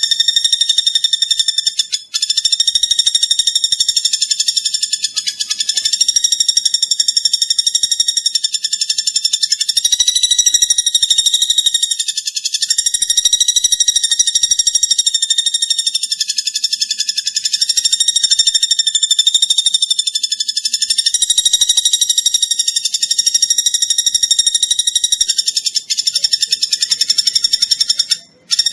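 Platuk bawang woodpecker calling in a high, fast, continuous trill that holds nearly the same pitch. It breaks off briefly about two seconds in and again near the end.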